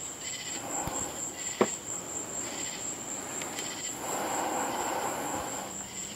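Night insects calling: a steady high-pitched trill with rhythmic pulsed chirps over it, the chirps coming roughly once a second. A single sharp click about one and a half seconds in.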